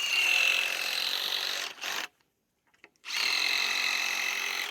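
Power drill running in two steady bursts of about two seconds each, with about a second's pause between them, while working on the wood of a fence.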